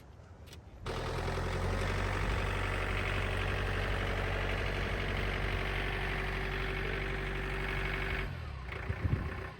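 An engine runs steadily at a constant speed. It starts abruptly about a second in and stops about eight seconds in, followed by a few knocks.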